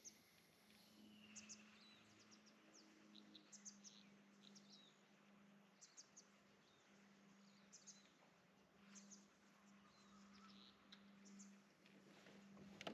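Near silence with faint, scattered short bird chirps every second or so, over a faint steady low hum.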